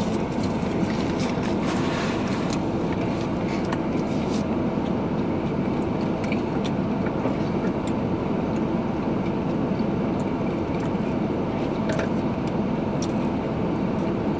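Steady hum of a car's cabin with the engine idling in a parked car, with a few faint short clicks now and then.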